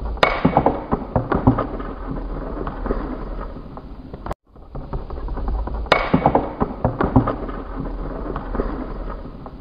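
Spinning Beyblade tops clashing and skittering in a plastic stadium: a run of sharp clicks and knocks as the homemade top bursts apart, then a steadier rattle of the parts spinning down. The sequence plays twice, with a brief silent break in the middle.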